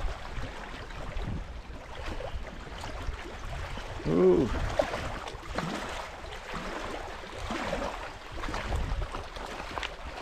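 Small choppy waves lapping and splashing against a rocky shoreline, with wind rumbling on the microphone. A man gives a short "ooh" about four seconds in.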